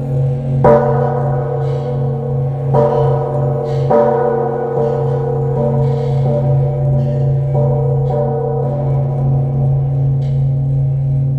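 Vietnamese Buddhist temple bell ringing: a low hum that pulses in level, with the bell struck about four times, each strike setting off a cluster of brighter ringing tones that slowly fade.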